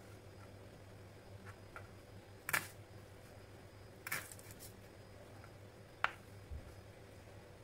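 Kitchen knife cutting shallots on a plastic cutting board: three sharp knocks of the blade striking the board, roughly two seconds apart, with a few fainter cutting ticks before them.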